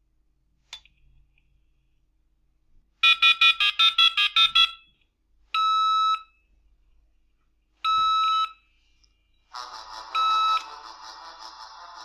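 A 33.6k dial-up modem's speaker dialing a phone number in touch tones: a quick run of about ten beeps. Two steady one-second tones follow, then a fainter buzzing sound with a short tone in it, as the call to the receiving phone goes through.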